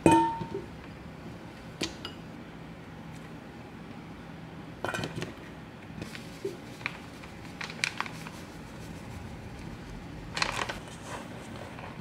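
Vegetable slices dropped into a stainless steel mixing bowl, with a sharp clink and a brief metallic ring at the start. Then a few short scattered rustles and clicks: a plastic bag of starch being handled and the vegetables being shifted in the bowl.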